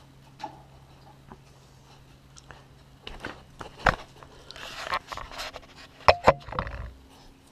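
Close knocks, scuffs and rustling as an English Mastiff puppy climbs up and noses at the camera, followed by two sharp knocks about six seconds in as the camera is set down on a wooden table.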